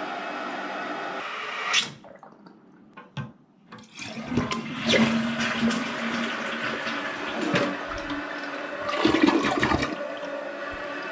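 Toilet flushing through a Mansfield flush valve fitted with a new seal. A steady hiss of water is cut by a sharp click about two seconds in, and after a quieter moment rushing water with clunks runs for about six seconds.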